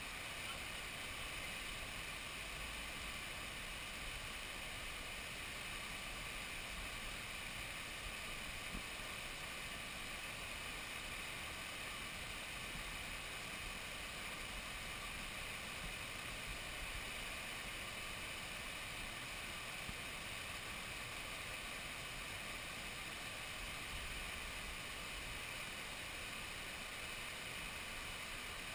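Water pouring over a river weir and churning through its fish pass: a steady noise of falling water that does not change.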